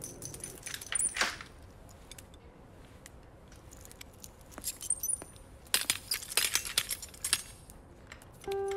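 Keys and a barred metal cell gate clinking and rattling. There are a few sharp metallic clinks about a second in, then a run of rattling clinks from about six to seven and a half seconds.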